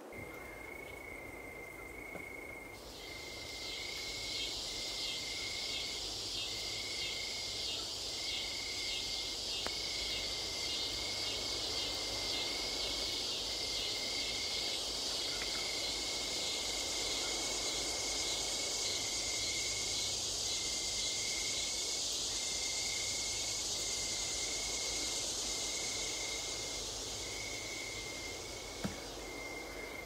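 Insects calling: a shrill, fast-pulsing insect chorus swells in about three seconds in and holds, over a lower chirping note that repeats in short bursts about once a second.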